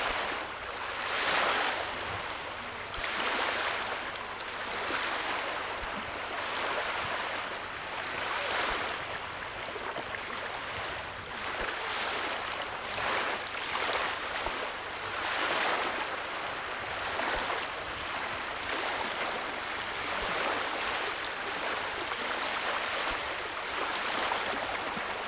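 Lake water lapping and washing in the shallows, with wind: a rushing hiss that swells and fades every second or two.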